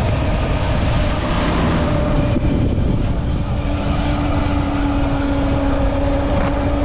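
KTM Duke motorcycle's single-cylinder engine running at a steady cruise, its note holding level, with wind rushing over the microphone.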